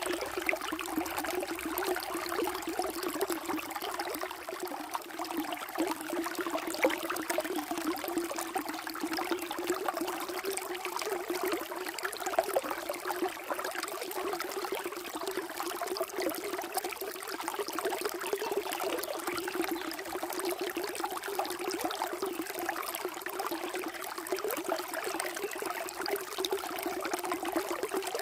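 Water flowing steadily, a continuous trickling and bubbling with no pauses.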